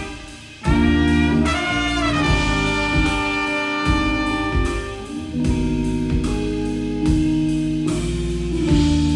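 Live band playing an instrumental passage: held, pitched notes over bass and drums, with the full band coming in about half a second after a brief drop in loudness.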